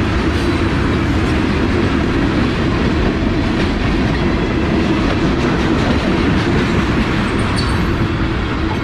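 Freight train tank cars rolling past close by: a steady rumble of steel wheels on the rails, with faint clicks.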